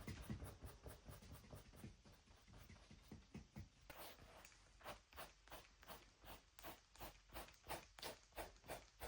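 Faint strokes of a drawing or painting tool on paper: irregular scratching at first, then short even strokes about three a second from about halfway in.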